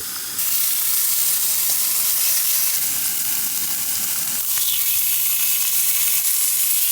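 Burger patties sizzling as they fry, a steady hiss that gets louder just after the start.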